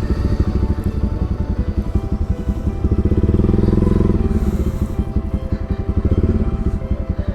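Motorcycle engine running under way, with a rapid, even beat of exhaust pulses that swells slightly in the middle.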